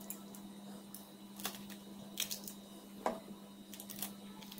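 Small knife cutting sun-dried red chillies held over a steel bowl: a few faint, irregular snips and clicks, about four in all. A steady low hum sits behind.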